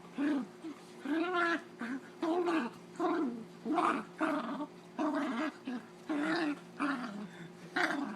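Dog play-growling during rough play: a rapid string of short grumbling growls, about two a second, each rising and falling in pitch.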